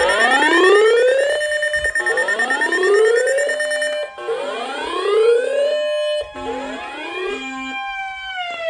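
Siren-style emergency alert tone played over a broadcast: a pitch that rises over about a second and a half, holds briefly, and repeats about every two seconds, over a steady high tone for the first half. Near the end it falls away in one long downward glide.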